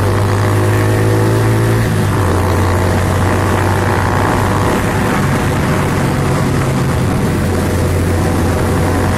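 Yamaha Vega underbone motorcycle's small single-cylinder four-stroke engine running steadily as the bike cruises, its note shifting slightly about two seconds in.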